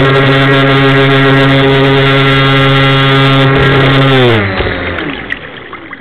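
Electric RC speedboat motor whining steadily at full speed, heard on board. About four seconds in the pitch falls away as the throttle is cut and the boat slows, leaving fainter water noise.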